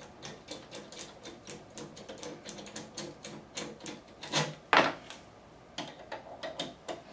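Rapid light clicking, about three to four clicks a second, from a hand driver unscrewing the quarter-inch bolts on a thermal copier's lamp assembly. Two louder knocks come about four and a half seconds in.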